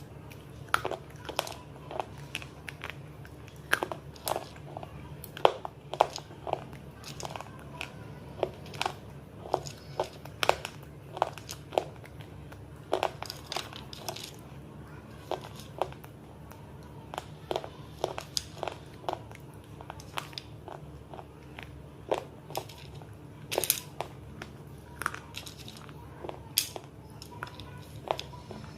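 Close-miked biting and crunching of hard, brittle pieces in the mouth, sharp irregular crunches about one to two a second, over a steady low hum.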